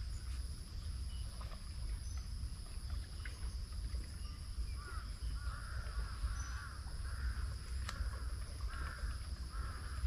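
A bird calling a run of short rising-and-falling notes, about two a second, starting about halfway through. Underneath are a steady high-pitched hum and a low rumble.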